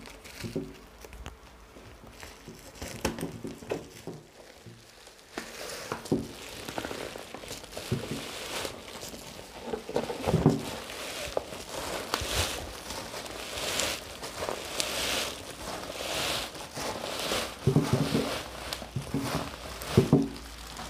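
Plastic packaging crinkling and rustling as it is handled and pulled off a long parcel, in irregular bursts that grow louder and busier from about five seconds in.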